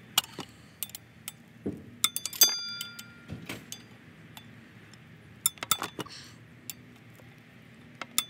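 Ratchet and 17 mm 12-point socket working the crankshaft bolts of a Honda K24's automatic flex plate: irregular metal clicks and clinks, a few of them ringing briefly about two seconds in.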